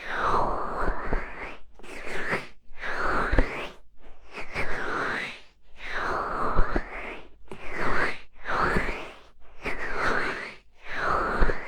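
Hands cupping over and rubbing a binaural microphone's ears in repeated muffled swells, each about a second long and about eight in all. The hollow resonance sweeps down and back up as each cupped hand closes and opens.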